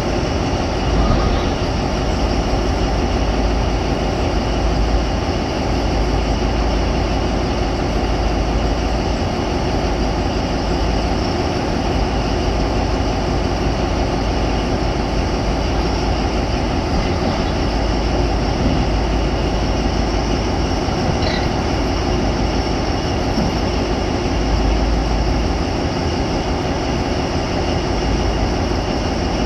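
A 205-ton mining haul truck and an electric rope shovel running together while the shovel loads the truck with coal. Steady, unbroken machinery noise with a deep rumble and faint steady high tones over it.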